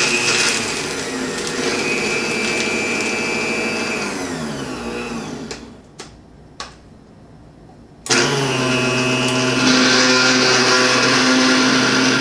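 Vitamix blender motor running on a jar of solid frozen sliced strawberries, then winding down with falling pitch to a stop about five seconds in. Two clicks follow, and about eight seconds in the motor starts again sharply and runs steadily, a little louder from about ten seconds.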